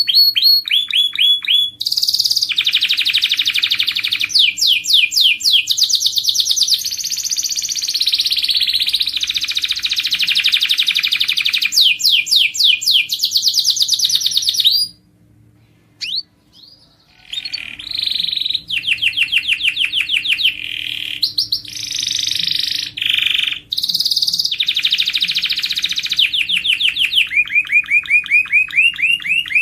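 Canary singing a long song of fast trills and rapidly repeated rolling notes, breaking off for about two seconds midway before starting again.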